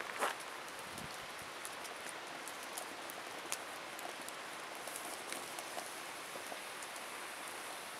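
Wood fire crackling: scattered sharp pops and ticks at irregular moments over a steady hiss.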